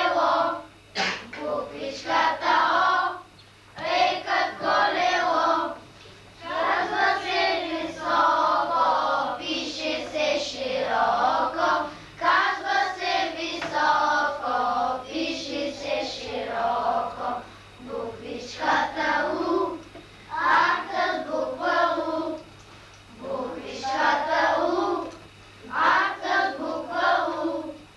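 A group of young children singing a song together in unison, in short phrases with brief pauses between them.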